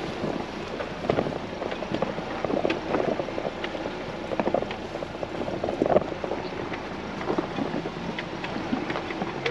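Off-road vehicle crawling slowly over a rough, rocky dirt trail: a low running rumble broken by irregular knocks and crunches as the tyres and suspension go over rocks and ruts.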